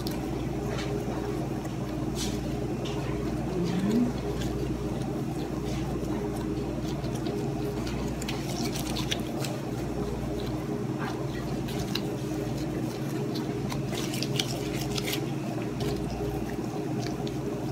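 Gloved hands rolling soft bread dough into balls on a paper-lined counter: faint squishing and paper rustling with scattered light ticks, over a steady low hum.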